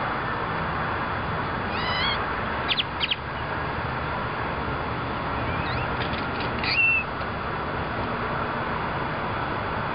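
A crow making squeaky, creaking calls and sharp clicks that mimic a shopping cart's squeaking wheels: a short squeak about two seconds in, a few clicks just after, and another run of squeaks and clicks around six to seven seconds, over steady background noise.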